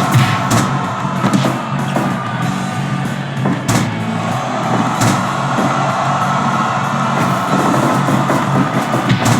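Rock music with a steady drum beat. A few sharp bangs cut through it, the loudest a little before the middle.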